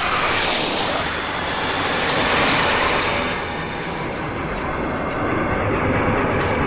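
Designed sci-fi fly-by whoosh with a glitchy, corrupted texture: a loud noisy rush that swells and recedes in waves, like something passing through with distortion.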